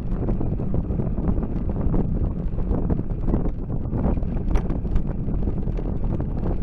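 Wind buffeting the microphone of a bike-mounted camera while cycling at about 15 mph, a steady low rumble with road noise. Scattered small clicks run through it.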